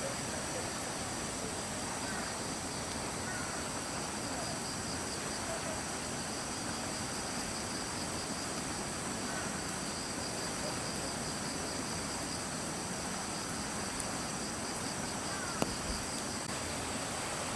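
Steady, high-pitched chorus of singing insects, with one sharp knock near the end.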